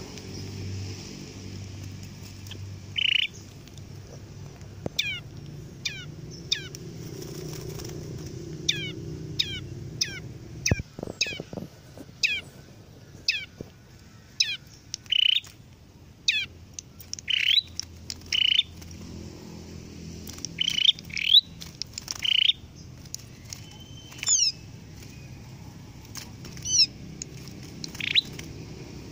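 Small songbirds in a wire cage trap chirping again and again: many short, high chirps that fall in pitch, with louder sharp chirps in between.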